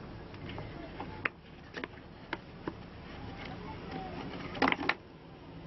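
Small cast orgonite pieces of hard resin set with metal knocking and clicking as they are handled and worked out of a flexible silicone mould: a few separate sharp clicks, then a quick louder cluster of clicks near the end.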